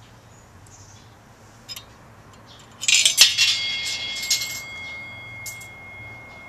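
A coin dropped through the slot of a small metal offering box, clattering loudly inside for about a second and then ringing with a thin high tone that slowly fades.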